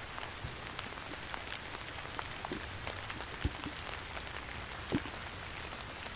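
Steady light rain in woodland, with many small drops ticking and a few heavier drips landing close by, the clearest about three and a half and five seconds in.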